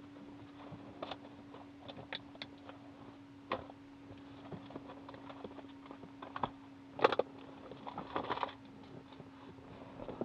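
Scattered faint clicks and rustles of hands handling things in a small plane's cockpit, over a steady low hum. The sharpest clicks come about three and a half and seven seconds in.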